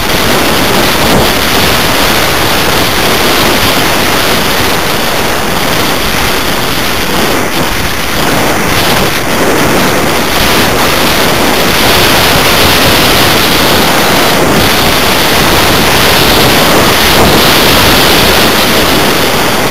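Airflow rushing over the onboard microphone of a 1/6 scale BAC IV model glider in flight: a loud, steady hiss with no motor, a little louder in the second half.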